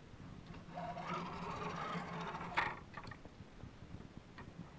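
Carriage of a CoreXY 3D printer pushed by hand along a diagonal, its linear bearings sliding on the steel rods and the toothed belts turning one stepper motor, for about two seconds; a light knock comes as the movement ends.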